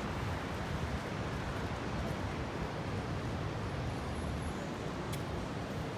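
Wind rumbling steadily on the microphone over the background noise of a busy outdoor street, with one short click about five seconds in.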